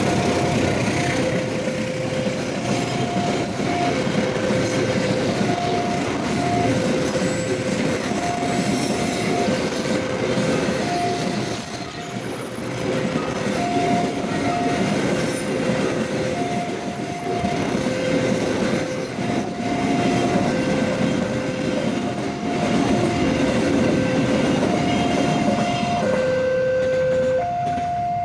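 Railway level-crossing warning signal sounding a slow alternating high-low two-note tone, over the steady rumble and clatter of a long train rolling through the crossing. The train noise thins out near the end while the warning tones carry on.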